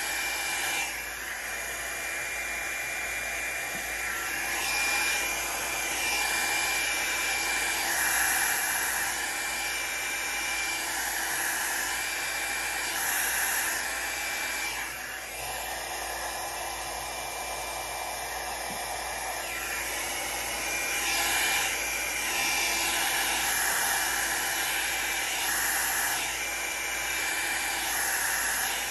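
Revlon hot-air styling brush, its brush head pulled off, used as a blow dryer: a steady rush of air with a faint high whine, swelling and dipping a little as it is swept back and forth to push and dry alcohol ink on the paper.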